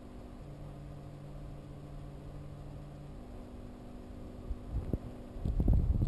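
Steady low hum and hiss of a reef aquarium's running equipment. About four and a half seconds in, a few low thumps and rumbles start and grow louder toward the end.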